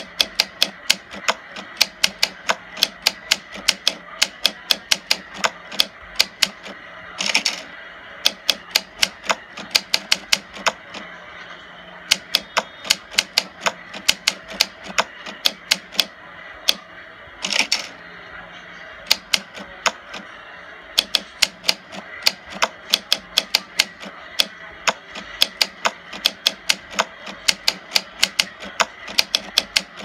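Typewriter keys striking in a quick, uneven run of clicks, about three a second, as a line of text is typed. Twice, about seven seconds in and again near eighteen seconds, a longer carriage-return sound breaks the typing as the paper moves to a new line.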